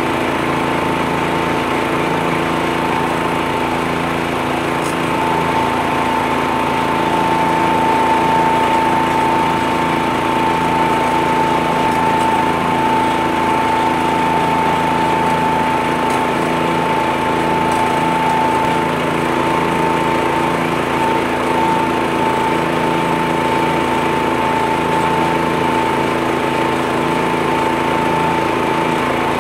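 Tractor-front-mounted leaf blower running steadily on a John Deere 1025R compact tractor. A constant high whine sits over the steady engine noise, with no change in speed.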